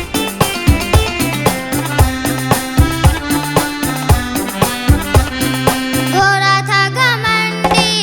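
Children's song music with a steady drum beat under a bright melody; about six seconds in, a wavering held melodic line comes in.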